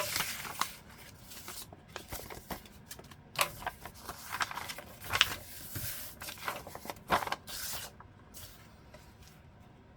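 Sheets of paper being handled and shuffled, rustling and crinkling in irregular bursts that die down after about eight seconds.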